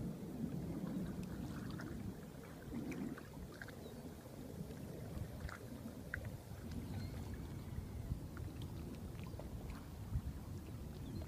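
Wind rumbling on a phone microphone over open water, with faint scattered small ticks throughout.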